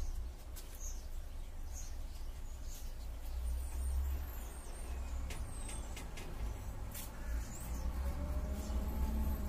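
Outdoor ambience: a steady low rumble of distant street traffic, with faint bird chirps and a few light clicks.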